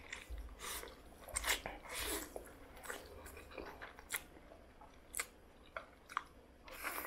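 A man slurping and chewing a mouthful of black noodles close to the microphone: an irregular run of wet sucking and chewing noises with a few sharp smacks.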